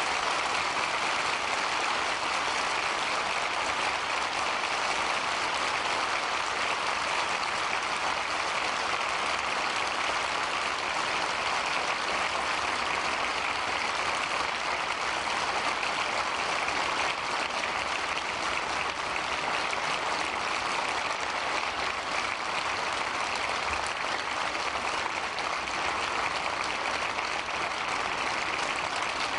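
Large crowd applauding steadily, with no letup.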